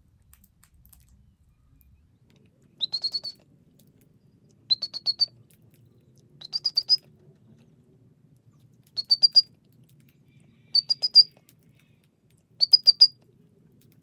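Green rosella calling: six short runs of four or five quick, high chirps, one about every two seconds.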